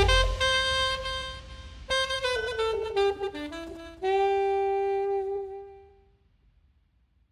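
Music: a solo melody line plays a few notes stepping down to a long held final note, which fades out about six seconds in.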